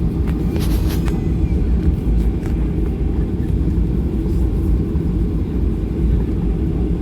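Steady low rumble of a Boeing 737-800's CFM56 engines and airframe heard inside the passenger cabin, with a few faint rattles near the start.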